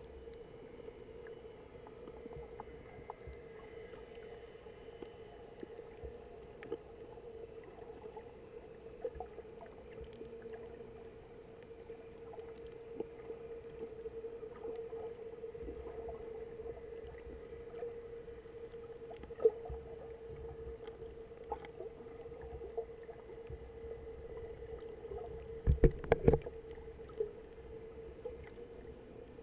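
Underwater sound of a shallow reef picked up by a submerged camera: a steady low hum with scattered faint clicks, and a quick cluster of sharp knocks near the end.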